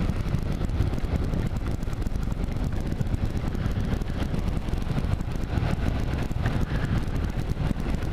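Kawasaki KLR 650's single-cylinder engine running steadily while riding, with wind noise on the microphone.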